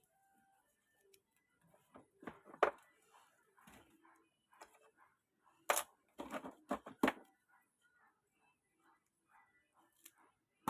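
Handling noise from work on a bench: a few sharp clicks and knocks of tools and small parts being picked up and set down, the loudest a cluster a little past the middle.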